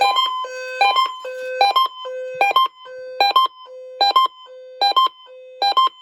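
Electronic alert beeper repeating a short pattern about every 0.8 seconds: a held low beep followed by a couple of quick higher beeps, in a buzzy square-wave tone.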